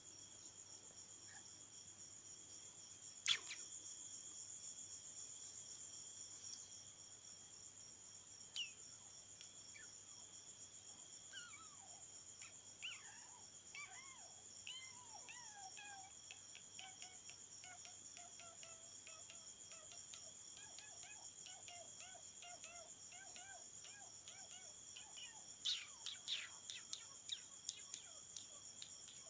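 Steady high-pitched insect chorus, like crickets, with faint short wavering squeaks through the middle. A sharp click comes about three seconds in, and a quick run of clicks near the end.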